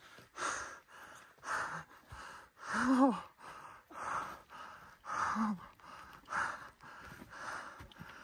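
A person breathing hard close to the microphone, quick breaths about one a second. Two of them are voiced as short gasps, about three seconds in and again about five seconds in.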